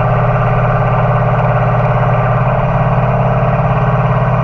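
Tractor engine running at a steady speed, a constant drone that holds one pitch throughout.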